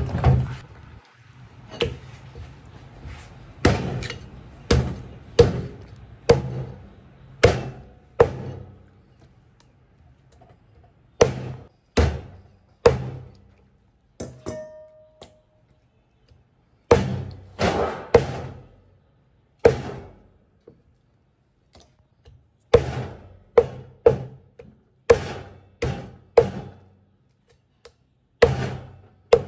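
Heavy meat cleaver chopping pieces of porcupine puffer fish on a thick round cutting board: sharp, irregular chops, some single and some in quick runs of two or three, with a couple of pauses of a few seconds.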